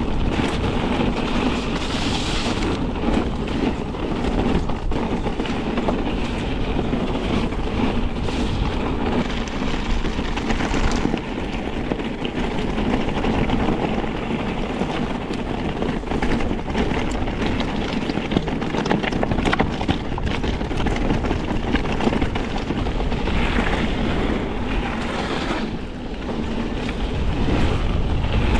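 Mondraker Crafty R electric mountain bike descending a rough forest trail at speed: tyres rumbling over dirt and rock while the frame, chain and components rattle and knock.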